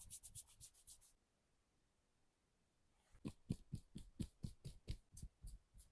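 Hands tapping in quick rhythmic percussive massage strokes: a fast run of light taps, a pause of about two seconds, then a steadier run of taps at about four or five a second.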